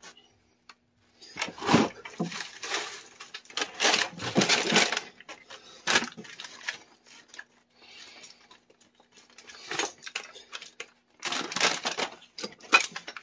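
Metal hand tools and fittings clinking and rattling as they are picked up and handled, in several short bursts of clatter.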